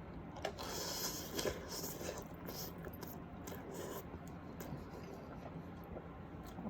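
Faint scraping and light clicks of noodles being picked out of an instant ramen container, scattered and irregular.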